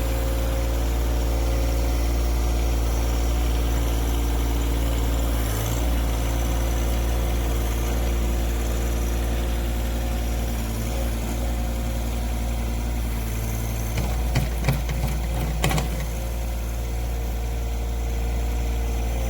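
John Deere 1023E compact tractor's three-cylinder diesel engine running steadily, with a few short knocks late on.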